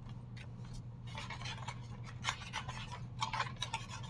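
Scissors snipping paper: a run of short, irregular snips and rustles as pictures are cut out.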